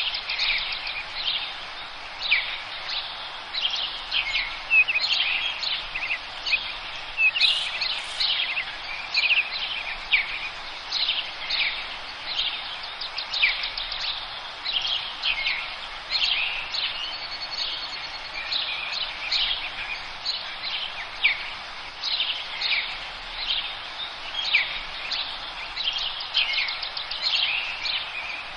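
A chorus of forest birds chirping and singing, with many short, quick overlapping calls and trills throughout, over a steady background hiss.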